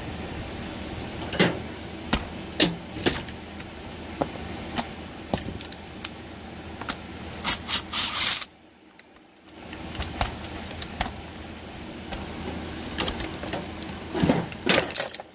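Metallic clicks and clinks of tools and parts on a Stihl MS 201 TC chainsaw's cylinder top while the spark plug is refitted. About eight seconds in there is a short, loud run of clicks from a cordless driver with a socket, tightening the plug.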